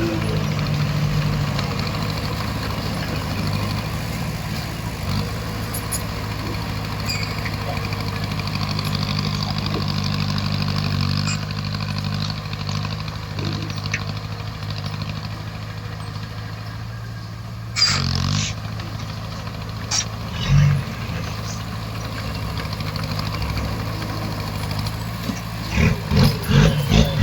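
Bulldozer's diesel engine running steadily, with a couple of knocks about two-thirds of the way in and a quick run of clanks near the end.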